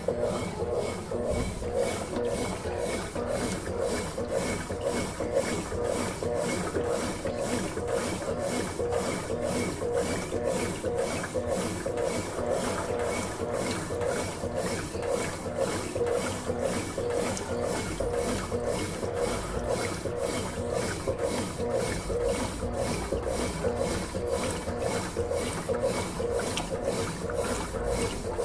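Consul Facilite 11 kg washing machine in its wash cycle, churning the clothes and water in a steady rhythm of about two strokes a second over a constant motor hum.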